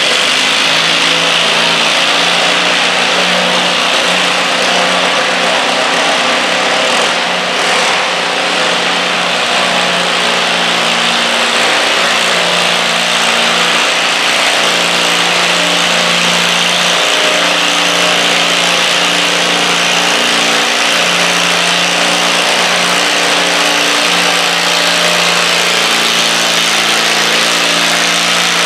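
Garden tractor engine running under heavy load as it pulls a weighted sled, holding a loud, steady note with little change in pitch.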